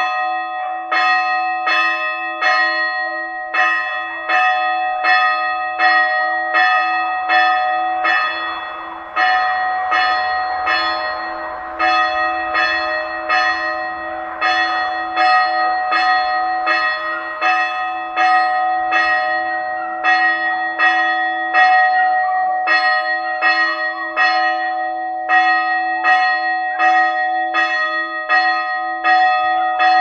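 Church bells ringing in fast, regular strokes, about two a second, the ring of each stroke carrying on under the next, with a brief pause a little before the middle.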